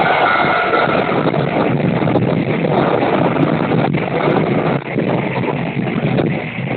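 Wind buffeting the microphone at the open window of a KiHa 205 diesel railcar, over the steady running noise of the train. A level-crossing warning bell rings briefly at the start as the railcar passes the crossing.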